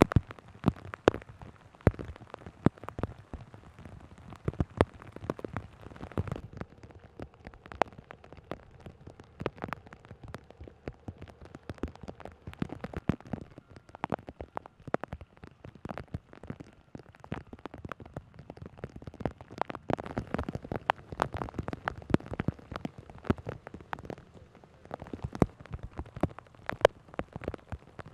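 Heavy rain falling, with many drops striking hard surfaces as dense, irregular sharp taps.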